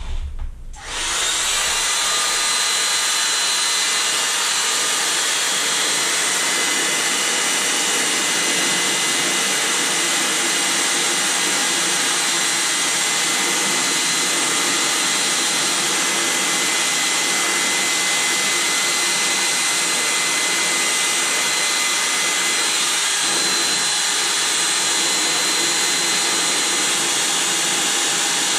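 Electric air pump switching on about a second in and then running steadily, inflating an inflatable swim ring: an even rushing hiss with a faint high whine.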